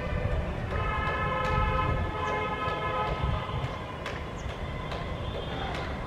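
A distant horn sounding a steady chord of several tones for about three seconds, then fading, over a low continuous rumble.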